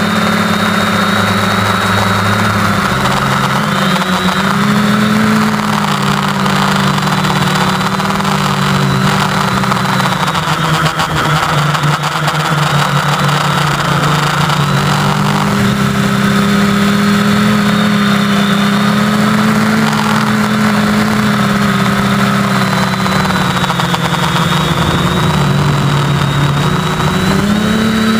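SK450 dead-cat quadcopter's brushless motors and propellers buzzing, picked up by the camera on board; the pitch slides up and down every few seconds as the throttle changes.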